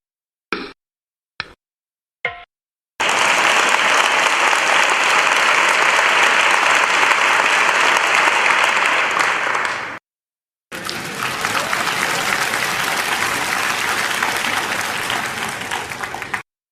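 Three short clicks about a second apart, then two long stretches of applause with a short break between them.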